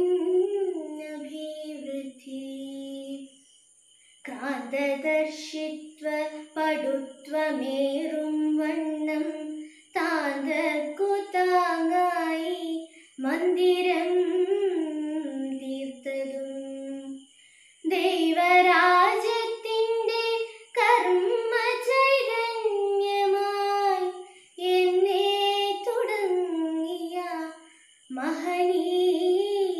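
A woman's voice singing alone, unaccompanied, in melodic phrases of a few seconds each with short pauses between them.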